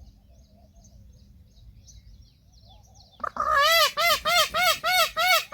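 Faint chirping of small birds, then about three seconds in a peafowl breaks into a loud rapid series of honking calls, about four a second, each rising and falling in pitch.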